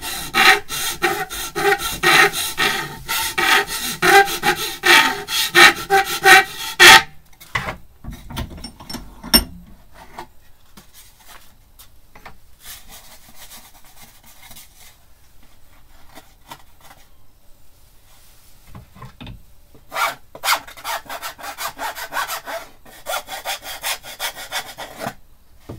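Hand file rasping back and forth along the edge of a window opening cut in a thin wooden panel held in a vice, about two strokes a second, stopping about seven seconds in. Then quiet knocks of pieces being handled, and a shorter, softer run of rubbing strokes near the end.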